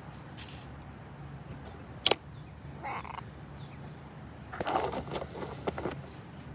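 Short harsh calls from pet parrots, a white cockatoo and cockatiels, over a low steady hum. A sharp click comes about two seconds in, and a dense scratchy cluster of sounds about two-thirds of the way through is the loudest part.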